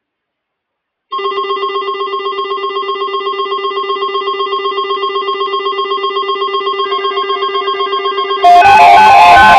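Weather alert radio receivers sounding their alarm: a rapidly pulsing electronic buzzer tone starts about a second in, then near the end a much louder, harsh, noisy signal with warbling beeps cuts in, as the radio's emergency alert signalling begins.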